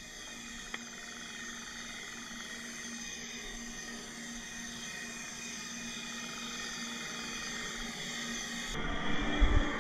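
Underwater sound picked up by a submerged camera: a steady hum of several fixed tones over faint water noise. Near the end it changes abruptly to a louder, low rumbling with a few thumps.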